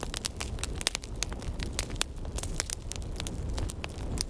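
Dense, irregular crackling: many sharp clicks over a low rumble.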